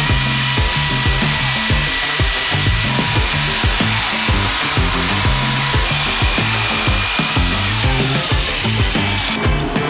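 Corded jigsaw running, cutting through a cedar tongue-and-groove board with a steady motor whine, under background music with a steady beat.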